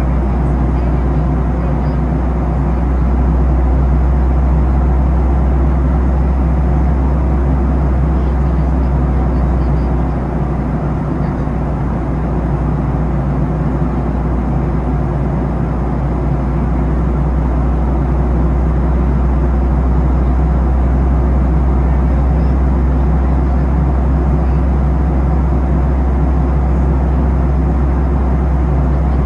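Steady cabin noise inside a Boeing 737-800 in flight: the CFM56 engines' drone and rushing airflow, with a deep rumble underneath. It dips slightly about ten seconds in, then holds steady.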